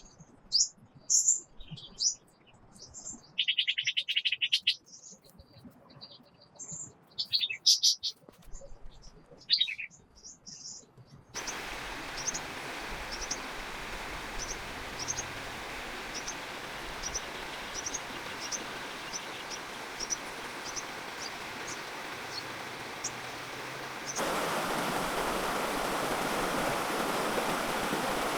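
Birds chirping and calling, with a short buzzy trill, over a quiet forest. About eleven seconds in, the steady rushing of a forest stream takes over, with a high chirp repeating about one and a half times a second; the water gets louder near the end.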